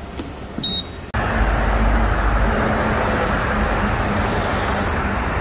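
Street traffic noise: vehicles running past with a steady low rumble and hiss, coming in suddenly about a second in after a quieter stretch.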